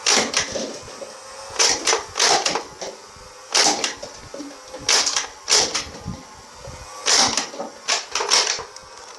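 Plastic toy guns clicking and rattling as they are handled, in short clusters of two or three sharp clicks about every second and a half.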